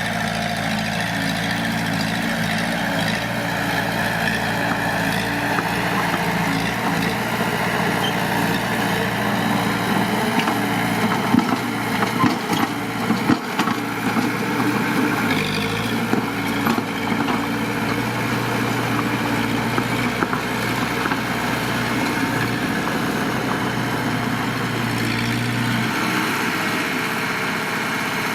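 Heavy diesel engine of earthmoving machinery running steadily, with a run of sharp clanks and knocks about a third of the way in.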